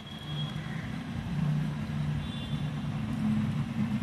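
Low, steady engine hum, growing gradually louder.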